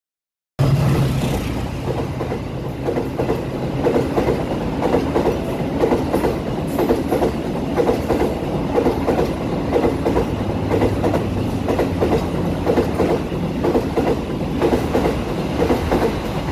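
Passenger train passing at speed: the coaches' wheels clack over the rail joints in a quick, uneven rhythm over a low drone that is strongest at the start, from the CC206 diesel-electric locomotive. The sound cuts in suddenly about half a second in.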